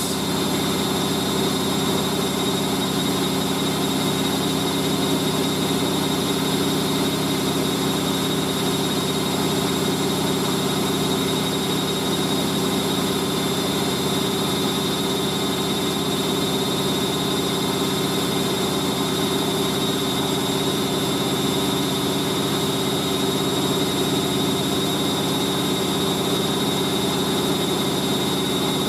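Hoover A3060 Electronic 1100 front-loading washing machine in its final spin, the drum turning steadily at high speed with a towel load, near its 1100 rpm top speed, its motor giving a steady high whine over a low hum.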